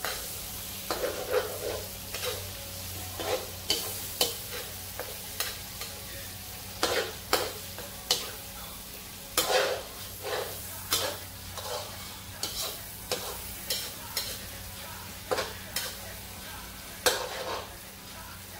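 Metal spatula stirring and scraping a thick sauce in a steel wok, with irregular scrapes about once or twice a second over a low sizzle of frying. A steady low hum runs underneath.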